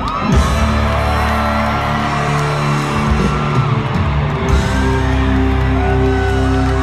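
Live band playing loud, amplified country-rock, with sliding electric guitar notes over steady held low notes.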